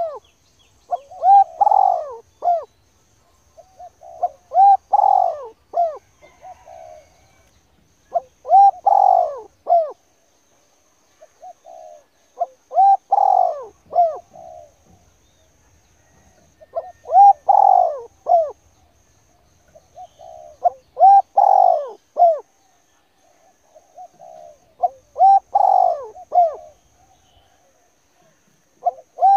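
A bird calling, a short phrase of several notes repeated about every four seconds.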